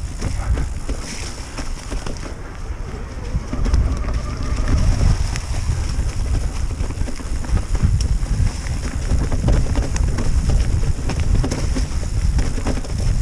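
Wind buffeting the microphone on a mountain bike riding a rough trail, with frequent clicks and rattles from the bike over the bumps.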